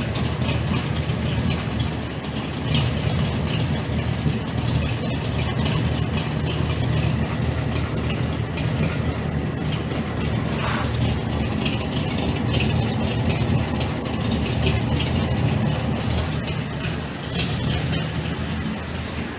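1972 Dodge Dart's naturally aspirated V8 idling with a steady low rumble.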